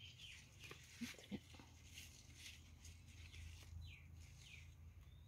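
Near silence: faint outdoor room tone with a couple of soft taps about a second in and a few faint, high, downward-gliding bird chirps near the end.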